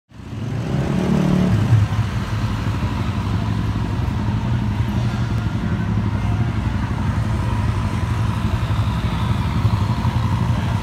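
An engine running steadily, a low even drone, with street noise around it.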